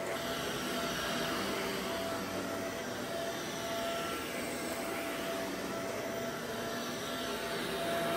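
Vacuum cleaner running steadily, a continuous rushing of air over a motor's steady whine.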